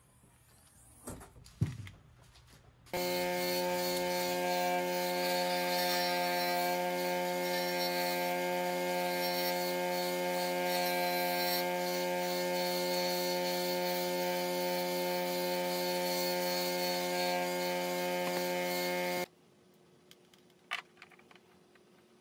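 Bench grinder running at a steady pitch while a small camera housing is ground down to round its shape. The sound starts and stops abruptly and holds level throughout, with a few light handling clicks before it.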